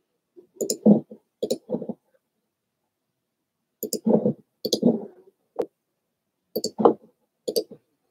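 Three quick clusters of clicks and knocks, a second or two apart, with one sharp tick between the second and third clusters.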